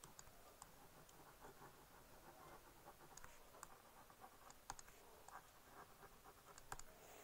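Faint scratching and light tapping of a stylus writing by hand on a tablet screen, with scattered short clicks as the pen strokes.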